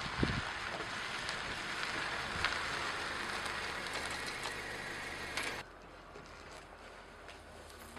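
Honda Civic sedan rolling slowly up a gravel driveway, its tyres crunching on the gravel, with a few low thumps near the start. The crunching cuts off abruptly about five and a half seconds in, leaving a quiet outdoor background.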